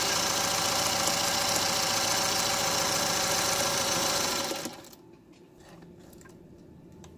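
Singer Featherweight 221K sewing machine stitching steadily through a strip of fabric under foot-pedal control, then stopping about four and a half seconds in. A few faint ticks follow.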